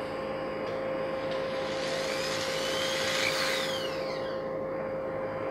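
Corded electric drill with a fine bit running as it drills into plastic bottle caps. Its whine rises and then falls in pitch between about two and four and a half seconds in, over a steady background hum.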